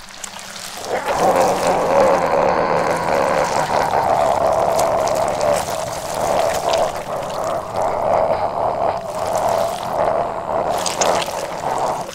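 Water pouring and running steadily into a container, swelling up about a second in and then holding.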